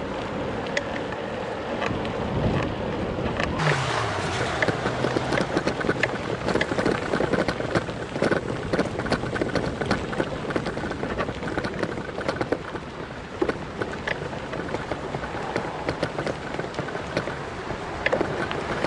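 Riding noise of a bicycle heard through an action camera: wind rushing over the microphone with constant crackling rattle. A motor vehicle passes about four seconds in, its engine falling in pitch.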